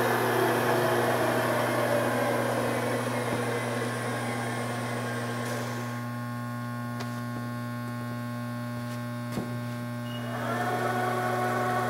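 ProtoTrak TRM CNC bed mill's drive motors whining as its axes are jogged, over a steady electrical hum. The whine falls in pitch and fades over the first five seconds or so, a single click comes near the end, and a new steady whine starts about ten seconds in.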